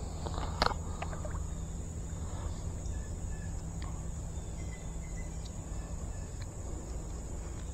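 Steady high-pitched insect drone from the summer woods over a low rumble, with a few faint clicks near the start.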